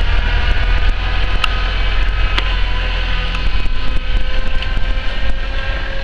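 Tractor engine running steadily under load as a front-loader tractor drives through deep snow, with a few light clicks.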